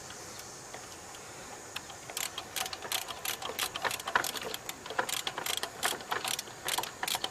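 Ratchet wrench with a 14 mm socket clicking in short, irregular runs as a bolt is turned, starting about two seconds in.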